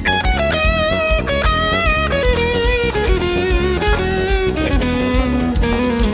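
Electric guitar playing a lead line of held notes with vibrato, stepping downward in pitch, over the bass and rhythm section of a big band.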